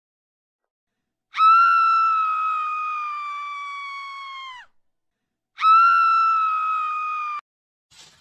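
Two long, high-pitched screams, each held on one note and slowly sinking in pitch and loudness. The first lasts about three seconds and the second about two, with a short pause between them.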